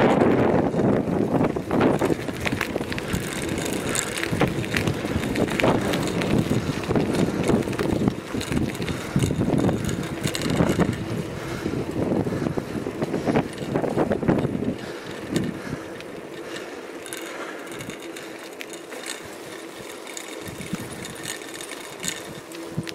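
A bicycle being ridden, with wind buffeting the microphone, tyre noise and small rattles and clicks. The wind noise is heavy for the first half and eases after about fifteen seconds, leaving a quieter rush with a faint steady hum.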